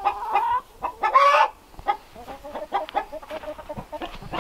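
Hens clucking: two loud calls in the first second and a half, then a run of quieter, quick clucks.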